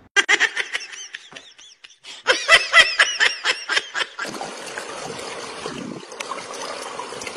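A quick run of short, high-pitched chirping calls, about five a second, stopping about four seconds in. Then a steady wash of water noise from a swimming pool.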